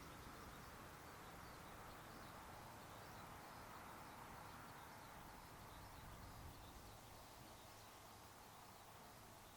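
Faint outdoor ambience: a low, steady hiss with faint, scattered chirps of distant birds.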